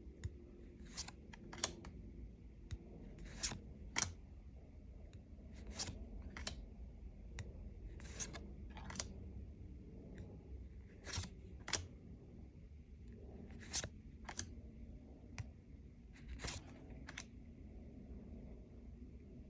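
Lorcana trading cards and booster-pack wrappers being handled: faint, irregular light clicks and short rustles, one or two a second, as cards are slid and flipped.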